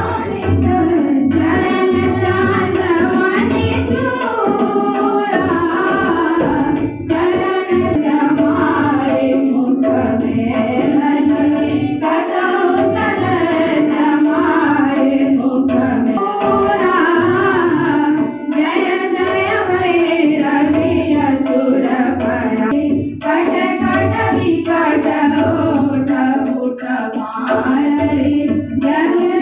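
Voices singing an Indian song in a slow, moving melody over a steady harmonium drone, with tabla accompaniment.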